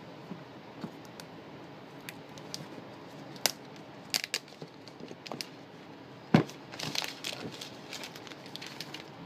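Plastic wrapping and cardboard packaging of an iPhone 5C box being torn and handled: scattered crinkling, crackling and small clicks, with a sharp knock about six seconds in, followed by a burst of crinkling.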